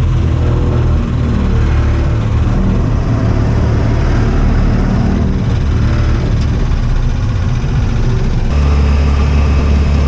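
Motorcycle engine of a tricycle (motorcycle with a sidecar) running steadily under way, heard from inside the sidecar cabin. The engine note changes abruptly about eight and a half seconds in.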